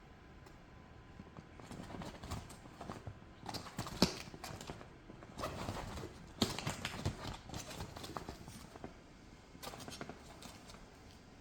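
Irregular taps, scuffs and rubbing squeaks as a small Pomeranian dog moves about on an inflated vinyl duck-shaped pool float, with one sharp knock about four seconds in.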